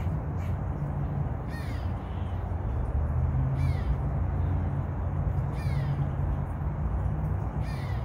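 A crow cawing four times, about two seconds apart, each call falling in pitch, over a steady low rumble.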